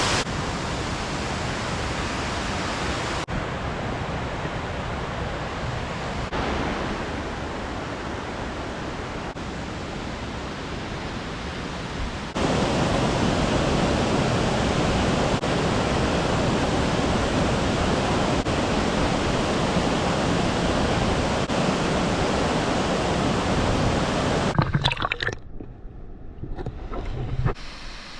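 Waterfall rushing: a steady roar of falling water, its level jumping at a few sudden cuts and dropping away briefly near the end.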